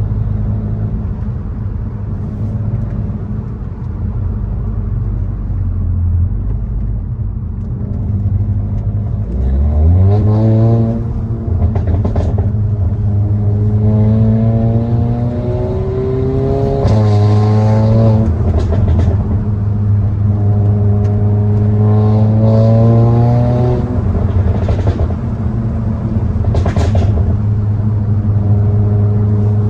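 Seat Cupra with a downpipe and resonator delete, its engine and exhaust cruising and then pulling hard under acceleration about ten seconds in. The pitch climbs, drops once for an upshift, climbs again, and then settles as the throttle eases off.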